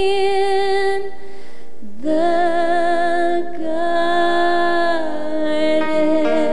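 Female gospel vocal trio singing a slow song with band backing. A long held note with vibrato breaks off about a second and a half in, and after a short breath the voices come back on a new long note held in harmony.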